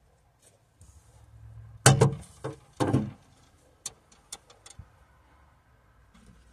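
Metal parts of an electric window regulator and motor knocking and clicking as they are handled and offered up inside a car door: a few loud knocks about two to three seconds in, then several lighter ticks.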